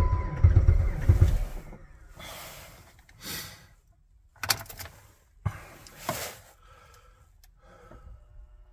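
Jeep Patriot's 2.4-litre four-cylinder cranked by its starter in extreme cold. It turns over slowly, in about three pulses a second, and never catches. The cranking stops about a second and a half in, and a few faint short sounds follow.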